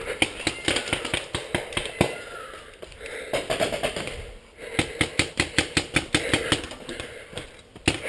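Paintball marker firing rapid strings of shots, about seven a second, in two bursts with a pause of about a second and a half in the middle.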